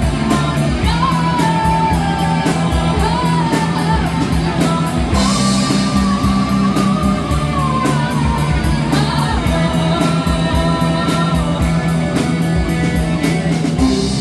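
Rock band playing live with guitar and drum kit: a steady ticking hi-hat beat, a held low bass line and a melodic lead line, with a cymbal crash about five seconds in.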